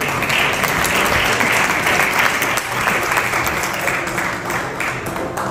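Audience applauding with dense clapping that starts abruptly and slowly dies down near the end.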